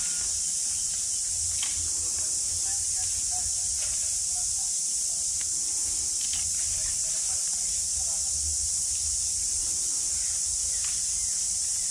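Steady, unbroken high-pitched hiss of an insect chorus, with a few faint clicks.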